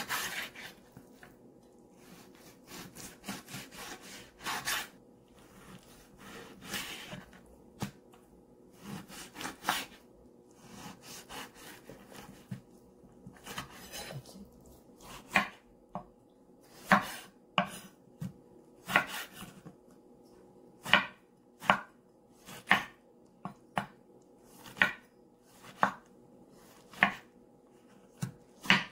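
Chef's knife cutting on a wooden cutting board. First it slices through raw pork with soft, uneven cutting sounds. About halfway through it switches to chopping a tomato, with sharp knocks of the blade on the board about once a second.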